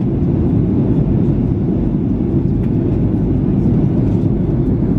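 Steady low roar inside the cabin of a Boeing 737 jet airliner in flight, from the engines and the air rushing past the fuselage.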